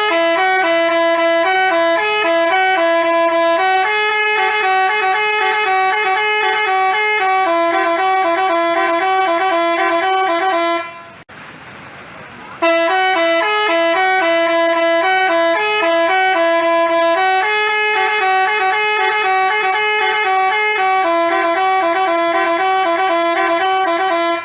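Telolet basuri multi-tone bus horn playing a tune in stepping chords of several horn notes at once. It cuts off about eleven seconds in and plays the same phrase again about two seconds later.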